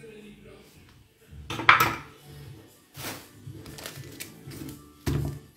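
Kitchen clatter: dishes and pans being handled, with a few sudden knocks and clatters, the loudest about one and a half seconds in and another near the end. Music plays faintly underneath.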